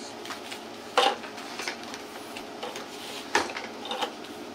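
A few light clicks or knocks from small objects being handled: the clearest about a second in, two more near the end, over faint room noise.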